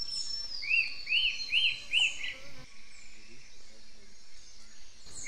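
Rufous-tailed attila (burlisto cabeza gris) singing a phrase of four arched, whistled notes, each rising and falling, about a second in. Behind it a thin high whistle slides slowly down in pitch, and the song is followed by faint forest background.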